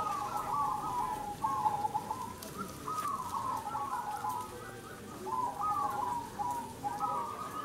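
Many caged zebra doves (perkutut) cooing together, their quick, stuttering coo phrases overlapping one after another.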